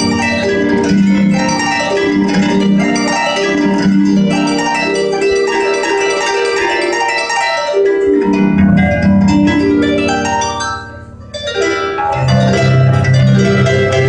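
Paraguayan harp playing a lively piece of quick plucked notes over a bass line, with a sweeping run of notes around the middle. The sound dips briefly about eleven seconds in, then the bass notes come back strongly.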